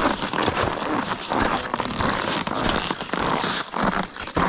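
Skis sliding and scraping over firm, chopped-up snow, an uneven crackly hiss that swells and dips as the skis bite and chatter.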